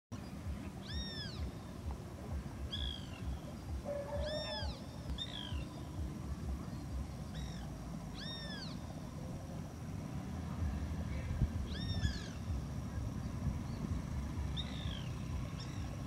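An animal repeats a short, high, mewing call, each call rising and then falling, about nine times at irregular gaps. A steady low rumble like wind on the microphone runs beneath.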